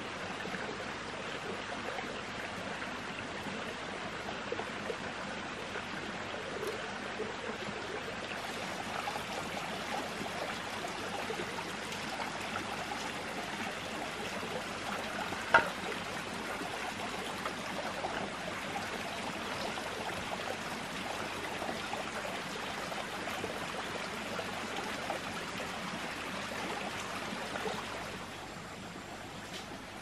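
Steady sound of running water from a small stream, with one sharp knock about halfway through. The water sound drops a little in level near the end.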